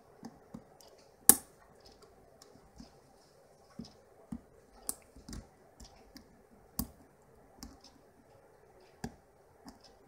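Irregular small clicks and ticks of a lock pick and tension wrench working the pins of a six-pin brass half euro cylinder, with one sharper click about a second in.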